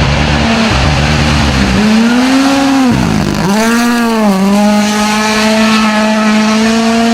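WRC Rally1 car's turbocharged 1.6-litre four-cylinder engine driven hard. It starts with a choppy low rumble and rises in pitch, then falls sharply about three seconds in, as at a lift or downshift. It climbs again and holds high and steady, flat out.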